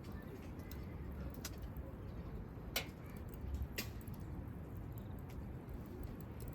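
Wood campfire crackling over a low steady background, with scattered small snaps and two sharper pops, the loudest nearly three seconds in.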